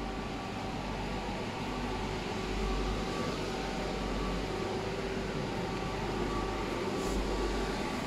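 Electric blower fan of a large inflatable frog figure running steadily, keeping it inflated: an even rush of air with a few faint steady humming tones.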